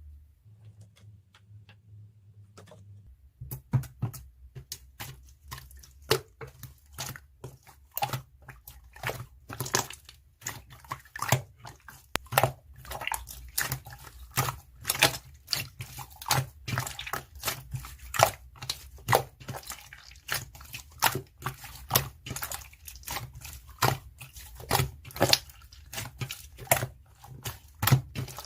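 Quick, irregular clicks and taps, several a second, that start about three seconds in and keep going.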